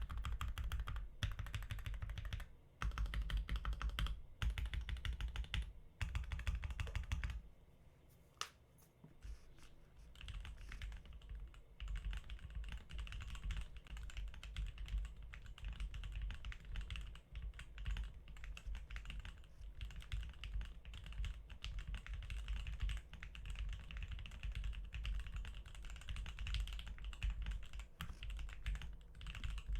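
Typing on an Akko ACR Pro Alice mechanical keyboard with Gateron Milky Pro Yellow linear switches, a silicone switch pad and plate foam, and YMDK Milk Fog keycaps: a stream of rapid keystrokes. About seven seconds in, the typing thins to a few scattered presses for a couple of seconds, then fast typing resumes.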